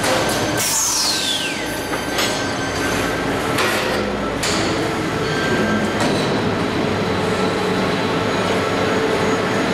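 Automatic sheet-metal air duct production line running: a steady mechanical din from its conveyors and forming machinery, with several metallic clacks in the first half and a falling whine about a second in.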